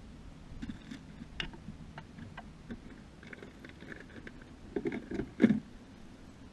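Scattered clicks and knocks of a bass boat's deck hatch lid being opened and handled, with a cluster of louder knocks just before five seconds and a loud thump about five and a half seconds in.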